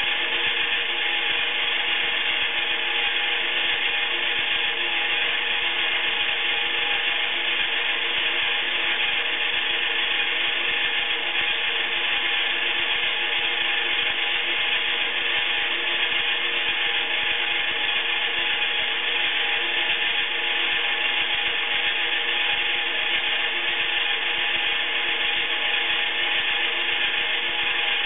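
Iriza toy washing machine running its wash: the small battery-powered motor whirs steadily and without a break as it turns the drum of wet laundry.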